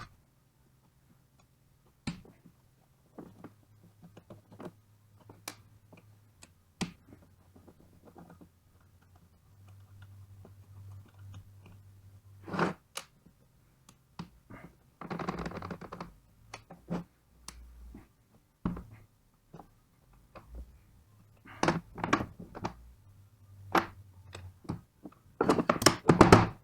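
Scattered knocks and clicks of metal tools and alternator parts being handled during an alternator bearing replacement, over a steady low hum. A short noisy stretch comes about halfway, and a cluster of rapid knocks comes near the end.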